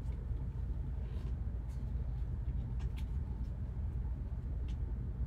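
A low steady hum, with a few faint light clicks and taps from rigid clear plastic card holders being handled by gloved hands.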